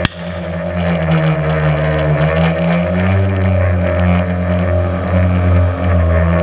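A Tannerite target detonating with one sharp, loud blast right at the start, heard over the steady multi-tone drone of the tricopter's motors and propellers. After the blast the drone briefly drops away, then comes back and carries on, shifting a little in pitch.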